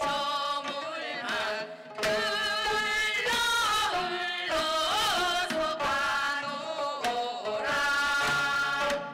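Gayageum byeongchang: several gayageum, the Korean plucked zither, played together while the players sing a Korean folk song in unison, the voices wavering with heavy vibrato between phrases.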